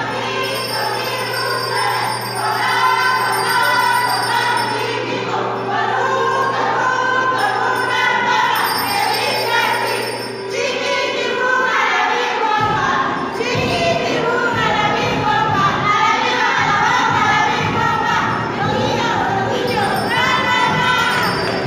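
Music with a group of voices singing together and a jingling of bells.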